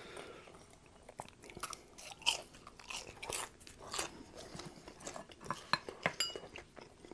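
Quiet, close-miked chewing of french fries, with irregular soft crunches. A brief ringing clink, which fits a touch on the glass bowl, comes about six seconds in.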